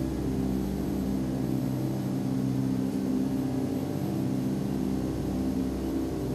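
A steady low droning hum made of several held low tones, unchanging and without breaks.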